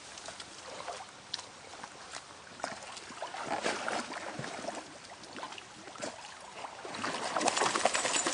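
A dog wading through a shallow stream, water splashing and sloshing around its legs, loudest about halfway through and again near the end.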